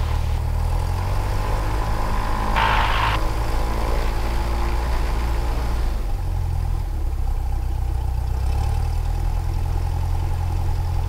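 Cessna 172R's four-cylinder Lycoming IO-360 engine and propeller running steadily at low taxi power, heard from inside the cabin, the engine note shifting slightly a few times. A brief hiss about two and a half seconds in.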